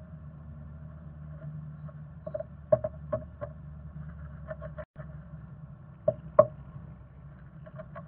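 Black-capped chickadee moving in its nest inside a wooden bird box: a handful of short scratches and taps on the moss and wood, the loudest two just after the middle, over a steady low hum.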